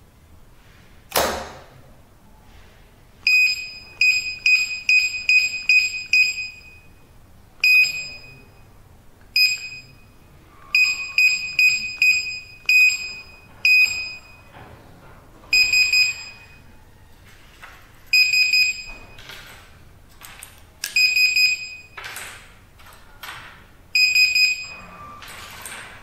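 Electronic access-control keypad's built-in buzzer beeping as keys are pressed: quick runs of short, high, identical beeps, then four longer beeps spaced a few seconds apart, as codes are entered in programming mode. A single sudden noise about a second in, as loud as the beeps, and a few fainter clicks between the later beeps.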